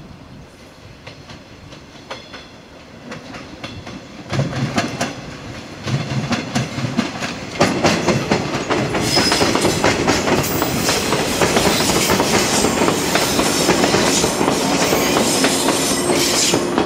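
JR 115 series electric multiple unit approaching and passing close by, its wheels clicking over the rail joints. The clicking grows louder from about four seconds in and is loudest as the train goes past in the second half.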